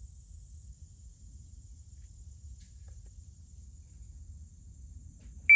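Faint background with a thin steady high-pitched tone, then near the end an electronic shot timer gives its loud single start beep.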